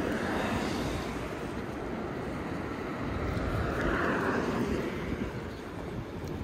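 City street noise: a steady traffic rumble, with one vehicle passing and swelling loudest about four seconds in.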